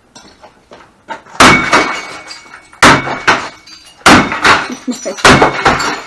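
Sledgehammer blows smashing an old electronic appliance: four hard strikes about a second and a quarter apart, each followed by a rattle of breaking pieces.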